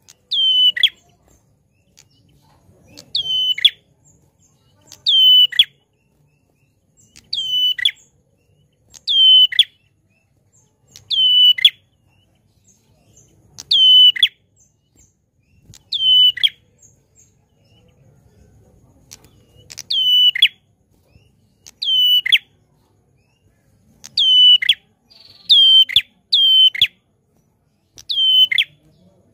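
Caged prenjak klawu, a small grey songbird with a rufous head, calling loudly: a sharp note that sweeps down in pitch, repeated about every two seconds, with one longer pause midway and a quicker run of three near the end.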